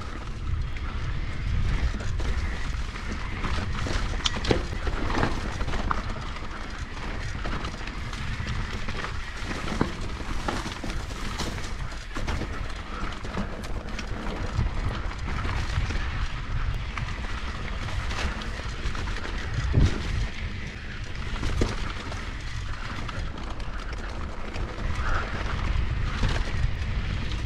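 Mountain bike descending a rough dirt singletrack at speed. A steady low rumble of wind buffets the microphone, with frequent sharp clicks and knocks as the bike rattles over bumps and ruts.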